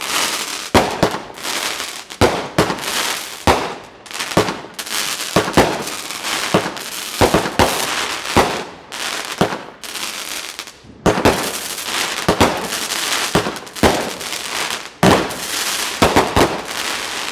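"America's Battalion" consumer firework cake firing its shots in quick succession: sharp bangs about two to three a second over a continuous hiss, stopping abruptly at the end as the cake burns out.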